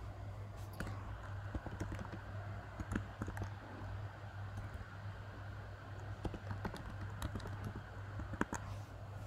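Typing on a computer keyboard: irregular runs of key clicks over a steady low hum.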